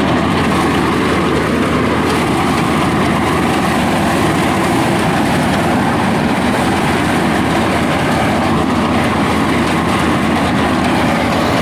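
An engine-driven machine running steadily and loudly.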